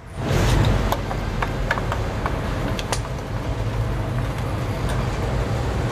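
Steady low mechanical rumble of a running engine, with scattered light metallic clicks from handling a small carburetor clamped in a bench vise.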